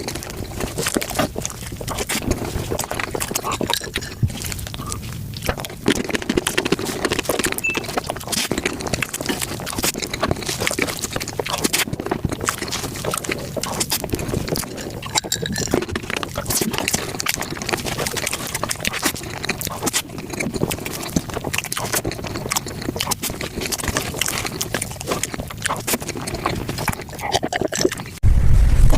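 Close-microphone eating sounds sped up five times: a dense, rapid run of wet chewing, smacking and slurping clicks that can sound almost like an animal. Just before the end a loud low rumble cuts in abruptly.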